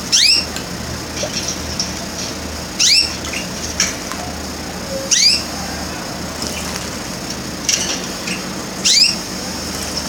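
Red canary splashing in a glass water bowl in four short bouts a few seconds apart, over a steady low hum.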